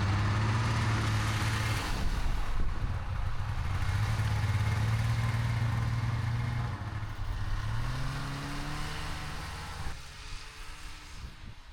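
Snowmobile engine running steadily, then rising in pitch about seven seconds in as it speeds up. The sound drops away near the end.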